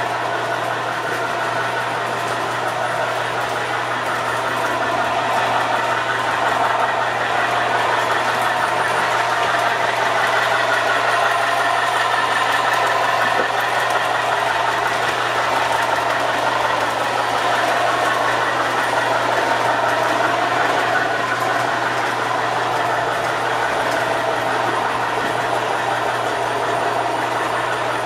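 O-gauge model train running on three-rail track: a steady rumble of wheels and motors with a constant low hum, swelling as a train of Pennsylvania Railroad passenger cars passes close by and then easing.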